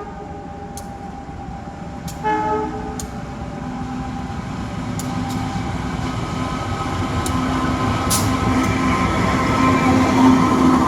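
A train sounds its horn in one short blast about two seconds in. The rumble of the train then builds steadily louder with a steady droning hum as it approaches.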